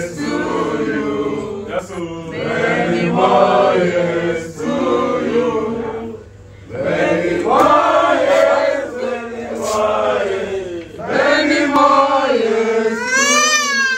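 A small group of people singing a birthday song together, phrase after phrase with a short break about six seconds in. Near the end a young child lets out a high, wavering cry.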